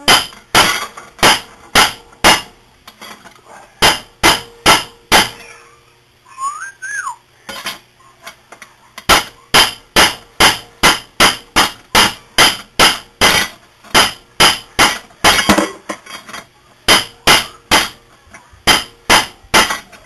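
Hammer striking a bicycle's bent steel chainring sprocket again and again, sharp ringing metal-on-metal blows about two a second, beating the bend out of it. The blows stop for a few seconds partway, where a short rising-and-falling whistle is heard, then carry on.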